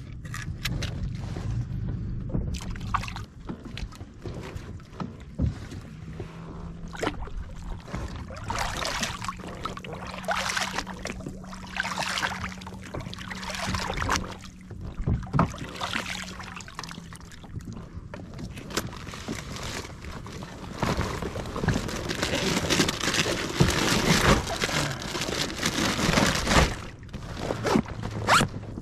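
Water splashing and sloshing at the side of a kayak as a fish is held in the sea, with irregular knocks and rustling from handling the fish and a gear bag on board.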